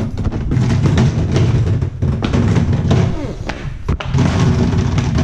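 Knocks and thuds of band equipment such as speaker cabinets being lifted and carried, over a loud low rumble.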